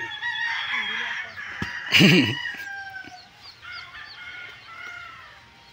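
Rooster crowing, a long call over the first three seconds, with a loud sharp sound about two seconds in; fainter short calls follow.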